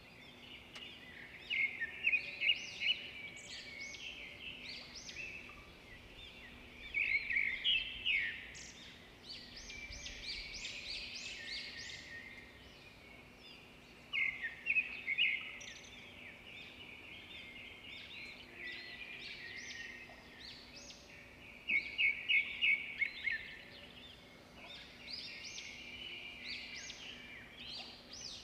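Small birds chirping and twittering in bursts, with quick runs of rapid chirps every few seconds, over a faint steady hum.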